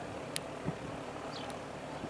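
Gyroplane flying overhead: a steady drone from its engine and pusher propeller. A sharp click and a brief dull thump come in the first second.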